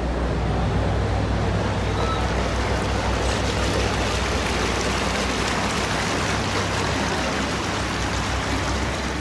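A canal narrowboat's engine running steadily as the boat passes below, a low hum under a haze of outdoor noise; the hum fades in the last couple of seconds as the boat moves away.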